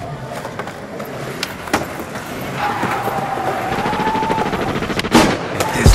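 Skateboard wheels rolling over pavement, the roll growing louder, with sharp clacks of the board being popped and landed near the end. A faint held tone sounds in the middle.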